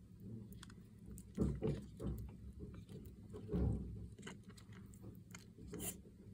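Soft crunching and clicking of crisp leafy greens, with a few duller, louder crunches about one and a half and three and a half seconds in.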